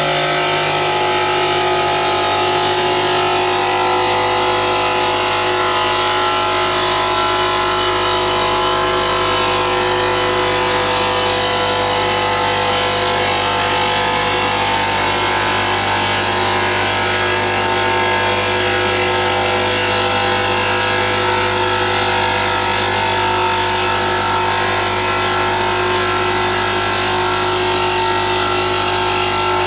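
CNC stone polishing machine running steadily, its spindle motor giving a constant whine over a rushing grinding noise.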